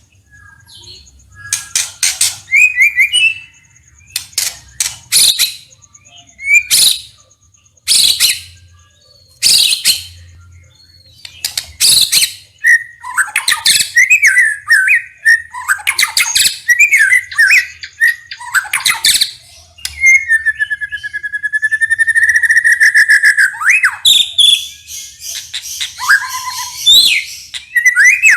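White-rumped shama (murai batu) singing: a string of sharp, harsh notes in the first half, then warbled phrases and a long whistled note about two-thirds in.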